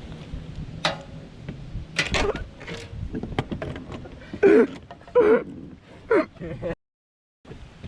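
A man's voice making short wordless exclamations, over a steady low wind rumble on the microphone, with a few sharp knocks. The sound cuts out completely for about half a second near the end.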